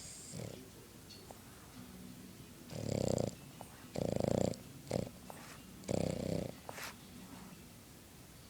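Boston Terrier snoring in its sleep: three snores about half a second each, roughly a second and a half apart, with a short snort between the second and third.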